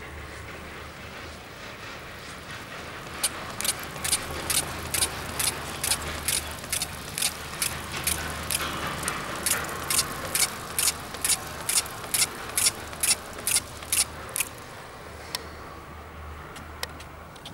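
Doppelmayr quad chairlift's grip rolling through the sheaves of a line tower: a regular clack about twice a second, starting about three seconds in and stopping near the end, over a steady low rumble from the haul rope.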